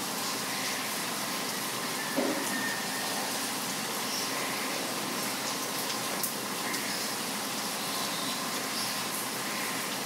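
Steady hiss of rain falling, with faint, scattered bird chirps over it and one short dull knock about two seconds in.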